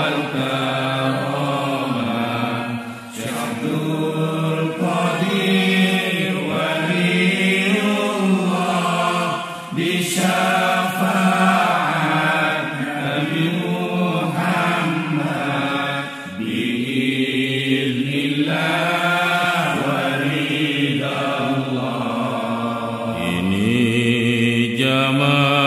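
Islamic devotional chant: a voice singing a slow melody in long, wavering held notes, with no clear words. Short breaks between phrases come about three, ten and sixteen seconds in.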